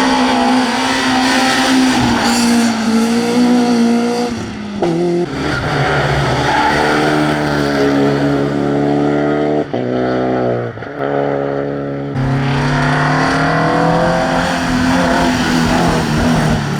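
Classic rally cars on a tarmac stage, engines revving hard and rising and falling in pitch through gear changes as they drive past. The sound changes abruptly a few times as one car gives way to another.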